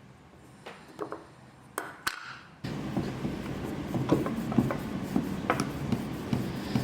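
Hand-cranked grinder in use: a few clicks and rubs, then from about two and a half seconds in a steady mechanical whirr with a sharp click about twice a second as it is turned.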